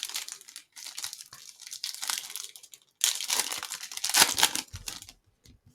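A trading card pack's wrapper being torn open and crinkled, in three stretches of rustling separated by short pauses.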